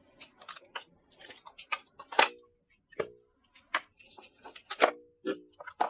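Scattered light clicks and taps with a few brief squeaks, from handling a motherboard's retail box and the packed accessories inside it.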